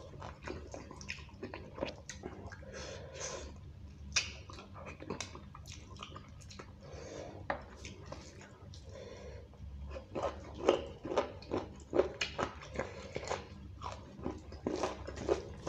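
Close-miked chewing of mouthfuls of beef curry and rice: a run of short clicking and smacking sounds that gets busier about ten seconds in, along with fingers squishing rice into the curry.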